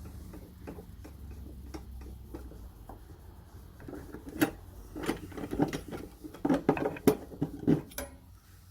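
Metal blade wrenches being taken out from their storage under a table saw: a run of light clicks, knocks and clinks, getting busier and louder about halfway through.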